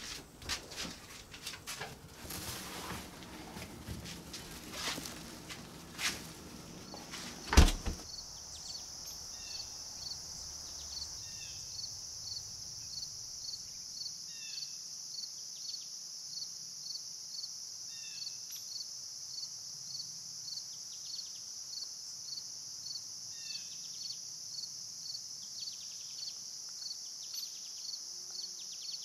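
A few knocks and clicks, ending in a loud bang about seven and a half seconds in, then a steady insect chorus with a regular pulse of about two a second. Scattered bird chirps sound over the chorus.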